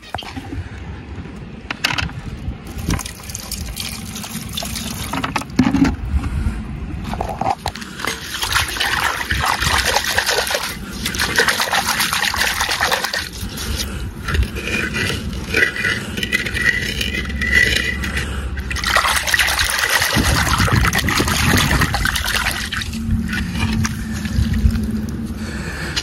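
Water pouring and splashing as a bird water vessel is rinsed out and filled, with a few knocks from handling the vessel.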